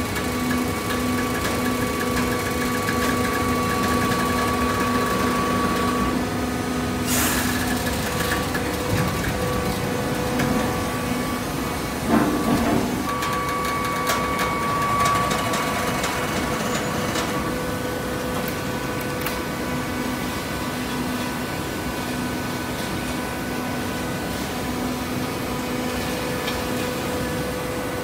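Automatic horizontal hydraulic baler running: a steady motor and pump hum with a held whine. There is a brief hissing burst about seven seconds in and a short louder burst about twelve seconds in.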